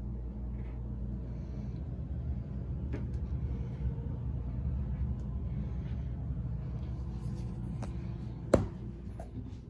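Steady low rumble and hum with soft faint rustling, and a single sharp click about eight and a half seconds in.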